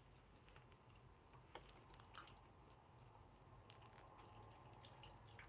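Near silence, with a few faint plastic clicks as the small action figure's arm joints are moved by hand.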